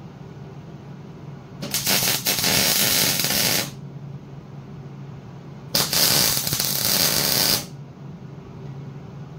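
MIG welder arcing in two bursts of about two seconds each, laying short fill welds into the tabs of a metal bracket.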